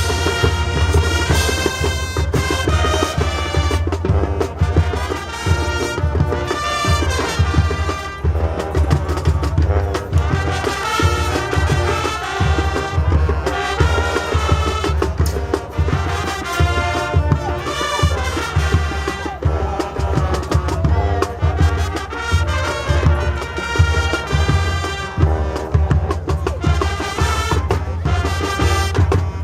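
High school marching band playing Spanish-themed field show music, brass carrying the melody over drumline percussion.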